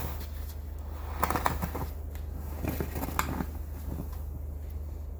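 A few short crunches and scrapes in heavy snow, a cluster of them about a second in and more near three seconds, over a steady low hum.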